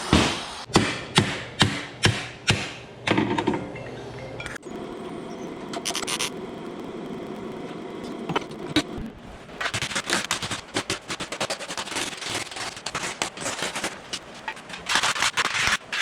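Sharp knocks, about two a second, for the first few seconds, then a fast rattling run of clicks through the second half, typical of metal bodywork.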